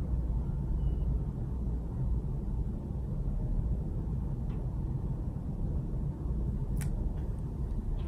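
Steady low rumble of background noise with no speech, with a faint click about four and a half seconds in and a sharper click, followed by a weaker one, near the end.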